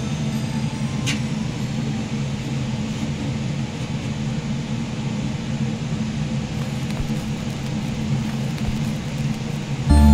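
A steady low mechanical hum with no rhythm. Loud music cuts in at the very end.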